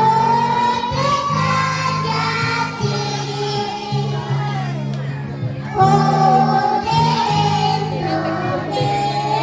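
Kindergarten children's choir singing a song together over a steady instrumental accompaniment.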